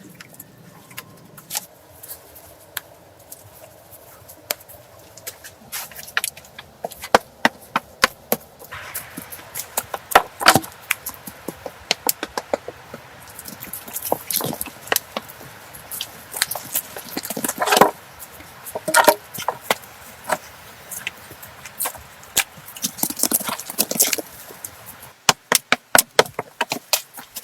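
Building work with hand tools: an irregular run of sharp knocks and chops, growing denser and louder about a third of the way in.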